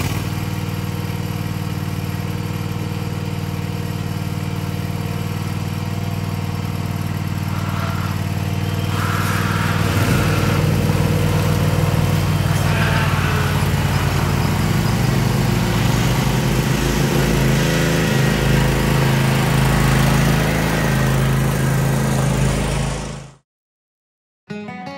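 Cub Cadet zero-turn mower engines running steadily as the mowers drive down off a trailer; the engine sound grows louder about ten seconds in and cuts off suddenly near the end.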